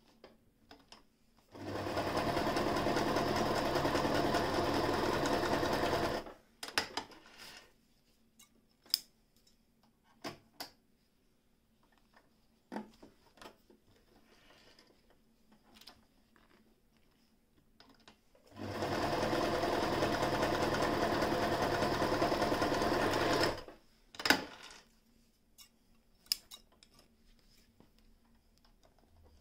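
Frister & Rossmann 202 electric zigzag sewing machine running at speed, stitching fabric, in two steady runs of about five seconds each. Short clicks and knocks come in the pauses between the runs.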